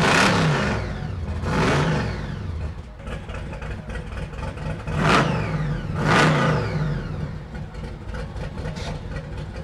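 Supercharged 426 Hemi V8 of a 1974 Plymouth Barracuda drag car, just started, revved in four short throttle blips, near the start, just under 2 s in, and at about 5 and 6 s. Each time the revs fall back to idle.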